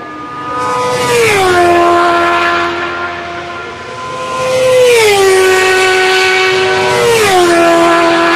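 Racing motorcycles of the over-600 cc class going past flat out, three pass-bys in a row. Each engine holds a steady high note, then drops sharply in pitch as it goes by.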